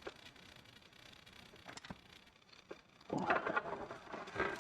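A few faint, sharp clicks of small metal linkage parts being handled. About three seconds in, a man's voice, a grunt or half-spoken words, as he strains to reach in.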